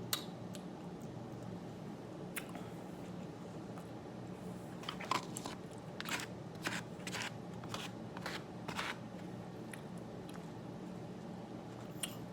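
A person chewing food close to the microphone: a string of soft crunches and wet mouth clicks, bunched mostly in the middle of the stretch, over a steady low room hum.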